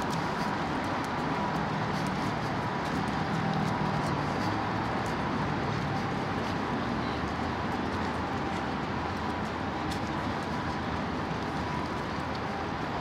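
Steady outdoor city ambience with a low engine hum that fades out about four seconds in, and scattered light clicks.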